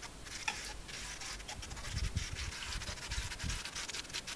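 Shallots, garlic and potato frying in olive oil in a stainless steel pot: a faint steady sizzle with fine crackles. A few dull knocks come about two to three and a half seconds in.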